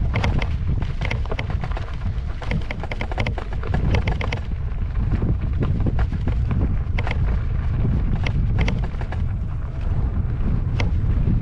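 Wind rumbling on the microphone of an electric unicycle riding down a rough dirt and gravel trail, with clusters of clicks and rattles as the wheel runs over loose stones, busiest in the first few seconds.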